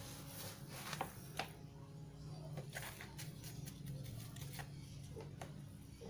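Faint scraping and rustling of a small plastic hand scoop working dry potting medium into a plant pot, with a few sharp clicks, the sharpest about a second in.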